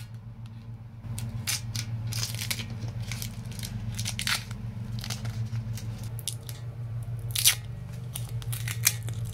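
Masking tape being peeled off the metal mounting brackets of a tank coated in sticky underbody seal, in a series of short crackly rips, the loudest about seven seconds in. A steady low hum runs underneath.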